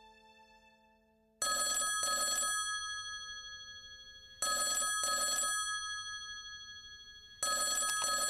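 Telephone ringing in the double-ring pattern, three double rings about three seconds apart, each ring's tone dying away before the next. Piano music fades out in the first second or so.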